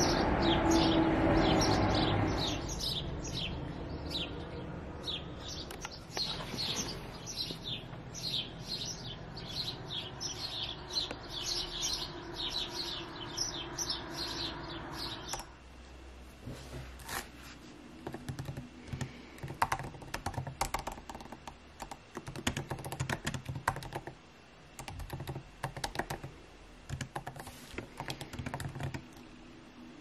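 Small birds singing outdoors in fast runs of short, falling high notes, over a louder rushing background that fades in the first couple of seconds. About halfway through this gives way to typing on a MacBook laptop keyboard: irregular soft key clicks.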